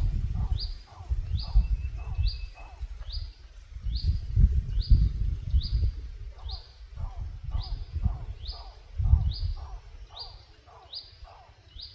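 A bird call played through a loudspeaker as a lure, one short call repeated at an even pace of about one and a half to two a second, each with a high note that drops away. Under it runs a loud low rumble that swells and fades.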